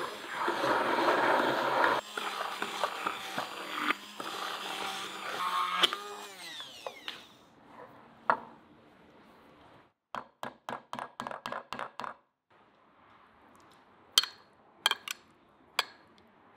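Immersion blender running in a glass jar, whipping egg and oil into thick homemade mayonnaise, then spinning down with a falling whine about seven seconds in. After a pause comes a quick run of light clicks, about four a second, and later a few sharper taps.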